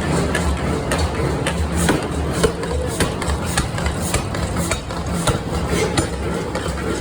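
Forging-shop machinery running with a steady low hum, with irregular sharp metallic knocks and clanks, roughly one or two a second.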